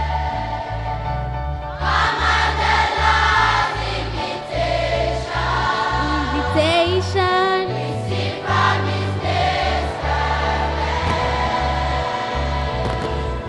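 A large children's choir singing a slow gospel hymn over instrumental backing with a bass line.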